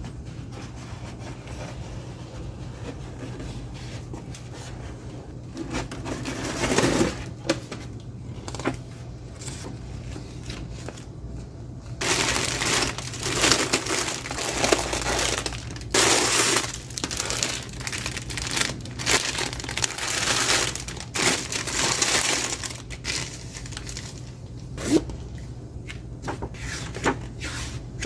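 Plastic and cardboard packaging of a model kit being opened and handled: irregular crinkling and rustling, loudest through the middle and second half, over a steady low hum.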